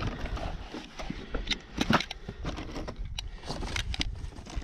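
Irregular light clicks and scrapes of cartridges being pressed into a Glock pistol magazine by hand.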